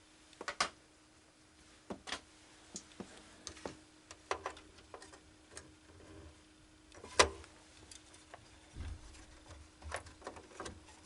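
Scattered sharp plastic clicks and knocks of DDR4 memory sticks being handled and pressed into a desktop PC's motherboard slots, with the slot latches snapping shut; the loudest click comes about seven seconds in.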